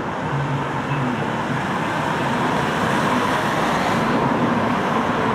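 Steady traffic and tram noise that grows slightly louder as a Blackpool Brush railcoach tram rolls slowly in towards the stop.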